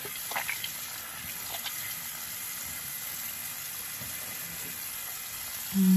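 Tap water running steadily into a bathroom sink as foaming face cleanser is rinsed off, with a few faint splashes.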